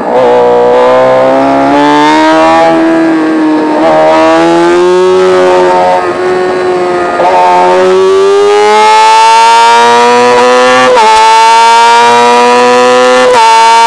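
Racing motorcycle engine heard from an on-board camera, the note holding lower through a corner, then rising steadily under hard acceleration with two quick upshifts near the end.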